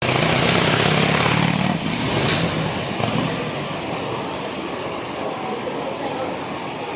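Street traffic: a car engine running close by, loudest in the first couple of seconds before fading into a general wash of traffic noise, with people's voices in the mix.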